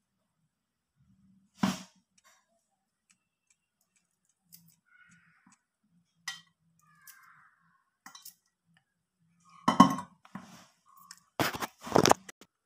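Rose apple pieces being broken by hand and dropped into a stainless steel bowl: scattered sharp knocks and clinks, the loudest in a cluster near the end.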